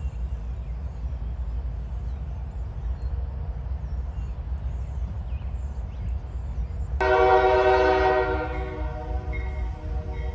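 An approaching CSX diesel locomotive blows its air horn once about seven seconds in: a chord of several tones, loud for about a second, then fading. A steady low rumble runs underneath.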